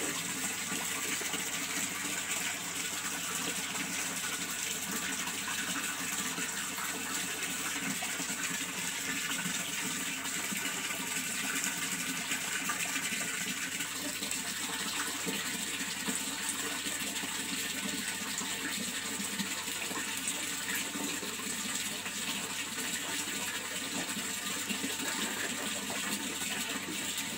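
Steady rush of running water, an even hiss without breaks or splashes.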